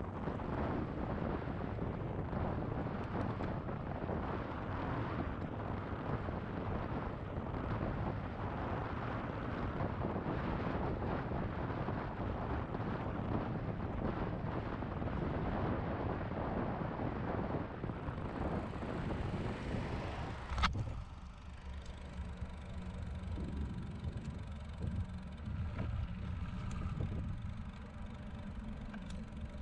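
Wind buffeting the microphone of a camera on a moving bicycle, a dense gusty rush. About two-thirds of the way through, a sharp click, and the wind noise drops away to a quieter low steady hum.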